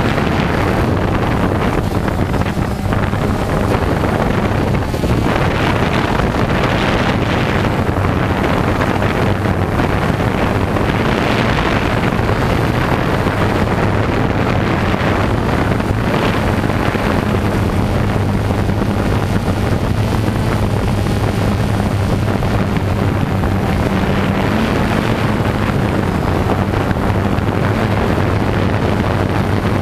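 Camera drone's motors and propellers whirring steadily, recorded on board, with wind rushing over the microphone.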